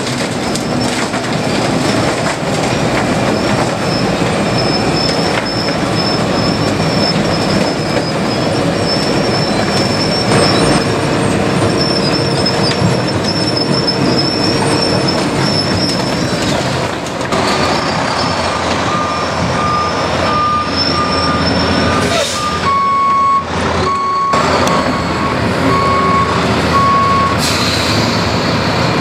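Wirtgen W250i cold milling machine running under load, its drum grinding up old asphalt while the conveyor drops the millings into a dump truck bed. A backup alarm beeps steadily through the later part.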